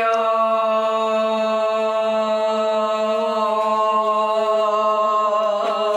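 A person's voice holding one long sung note without a break, ending near the end.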